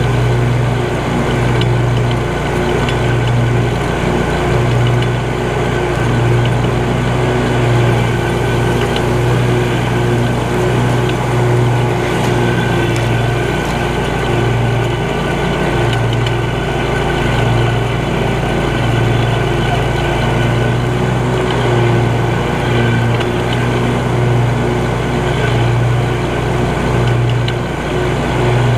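Scag Cheetah 52 zero-turn riding mower running steadily while cutting grass, a loud, constant engine hum.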